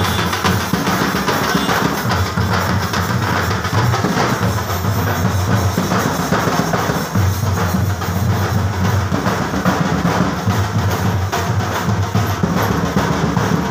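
A street drum troupe playing loud, continuous rhythmic drumming, with deep bass-drum beats under a dense clatter of faster strokes.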